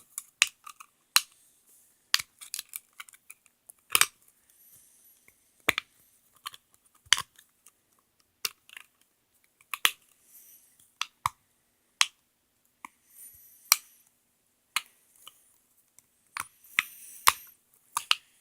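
Irregular sharp clicks and clacks of small hard plastic toy pieces being handled and knocked together, roughly one or two a second with gaps between.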